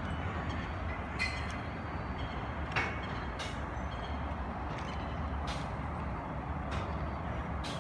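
Steady city street traffic noise with a low hum, crossed by a few light clicks at uneven intervals.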